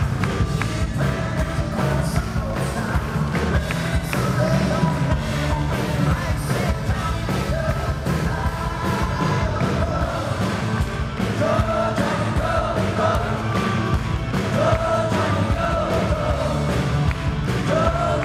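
Live rock and roll performance: a male lead voice singing over strummed acoustic guitars and a band, with sung phrases coming in several times over a steady backing.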